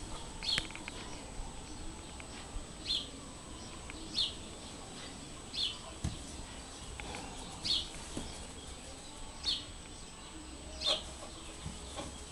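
A small bird calling a short, high chirp over and over, about once every one and a half seconds, over a steady low background hum.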